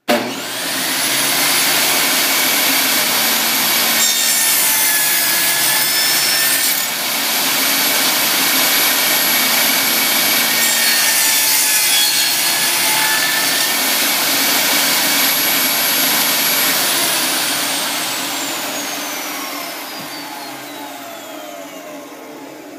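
Table saw switched on, its motor whine rising as the blade spins up, then the blade cutting wooden top-bar stock in two passes, about four and about eleven seconds in. Near the end the saw is switched off and the whine falls steadily as the blade spins down.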